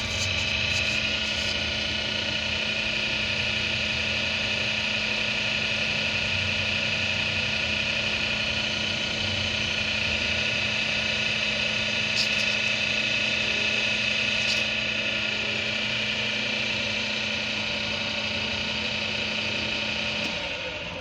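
An electric motor running steadily at constant speed, with a high whine over a lower hum, then winding down near the end.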